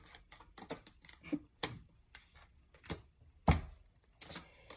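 A tarot deck shuffled by hand: irregular taps and slaps of cards against each other, one louder slap about three and a half seconds in.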